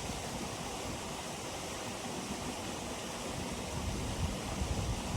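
Steady rushing wind outdoors, with uneven low buffeting on the microphone.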